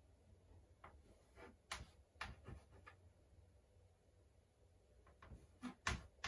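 Chalk tapping on a chalkboard as numbers are written: faint, irregular ticks, several about a second or two in and a quicker cluster near the end.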